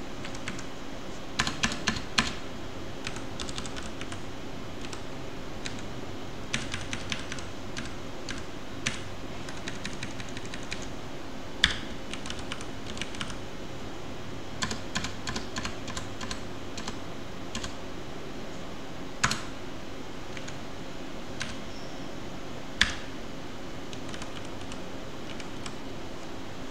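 Computer keyboard typing in short bursts of rapid keystrokes, with a few louder single key clicks between them, over a steady low background hum.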